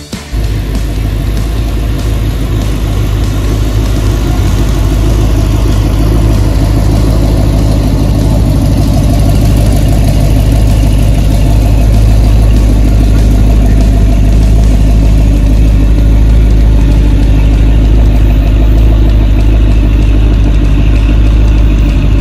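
Loud, steady low rumble of a classic car's engine idling close by.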